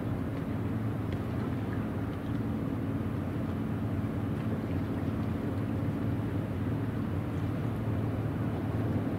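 The car ferry Kyokuyo Maru's diesel engines droning steadily as it manoeuvres, heard across the water as a low, even hum that does not change in pitch.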